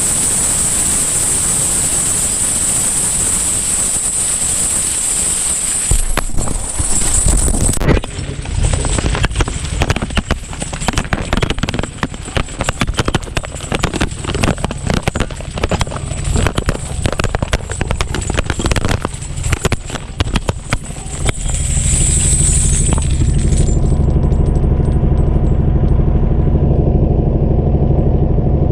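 Wood chipper with a chain flail debarker running. It starts as a steady high whine, then from about eight seconds in gives a long stretch of dense, rapid clattering impacts, and settles about twenty-two seconds in into a steady low engine drone.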